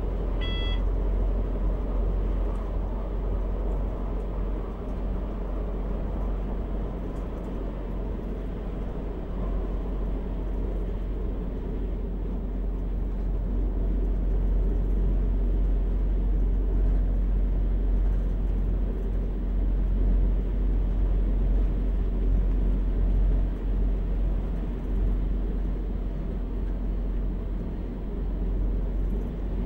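Class 642 Desiro diesel multiple unit running along the line, heard from the driver's cab: a steady low drone of the diesel engine and wheels on the rails. A brief high tone sounds about half a second in.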